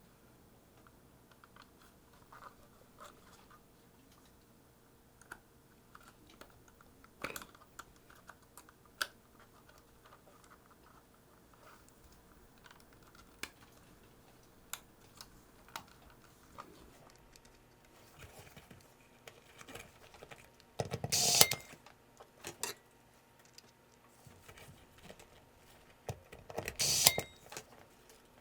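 Scattered light clicks and taps of small parts and tools being handled while replacing thermal pads on a camcorder's main board, with two louder, noisy bursts lasting about a second each, about three-quarters of the way through and again near the end.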